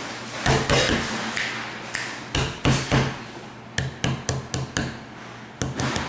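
A series of irregular sharp knocks or taps, about a dozen in quick succession, some close together in pairs.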